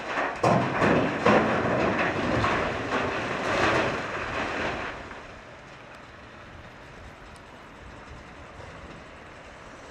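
Blasted rock pouring from a wheel loader's side dump bucket into a steel dump truck body, a rough clattering crash of many stones for about five seconds. It then dies away, leaving the steady hum of diesel engines running.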